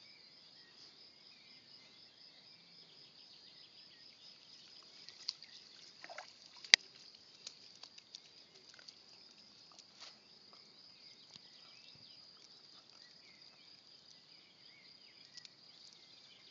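Steady high-pitched chirring of insects in the grass. About seven seconds in there is a single sharp click, the loudest sound, and there are a few fainter taps and knocks.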